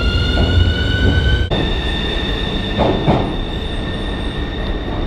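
Subway train running with the electric traction motors' whine rising in pitch as it picks up speed. About a second and a half in, the whine jumps abruptly to a steady tone. A steady low rumble from the running gear lies underneath.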